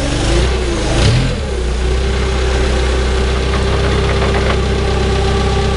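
An engine idling steadily, with a brief surge about a second in and a steady whine that comes in shortly after and holds.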